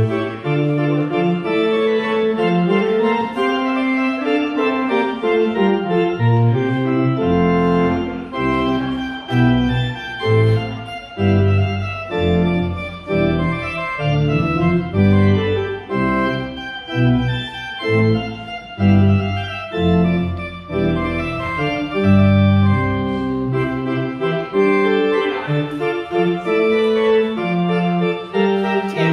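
Organ music: sustained chords over a bass line that moves about once a second.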